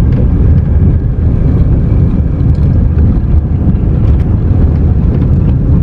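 Car driving slowly along a narrow, rough concrete road, heard from inside the cabin: a loud, steady low rumble of tyres and engine, with scattered small clicks and rattles.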